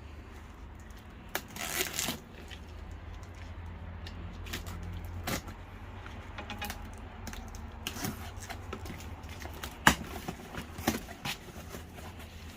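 A cardboard box being cut and opened by hand with a knife: scattered scrapes, rustles and clicks, with a sharp click near ten seconds, over a steady low hum.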